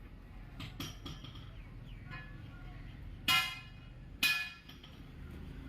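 Two sharp metallic strikes about a second apart, each ringing briefly with a clear tone before fading, over a faint workshop background.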